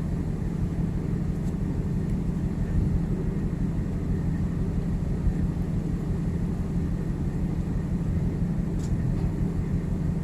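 Steady low drone of a ship's machinery running, with a couple of faint clicks.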